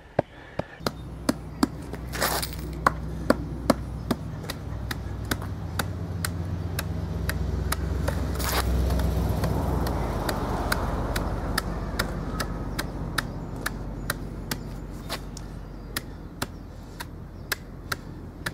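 A homemade wooden tamper, a 4x4 nailed onto a 2x4, thudding down on loose cold-patch asphalt in a steady rhythm of about three blows a second, packing the patch tight. A low rumble swells in the background about eight to ten seconds in.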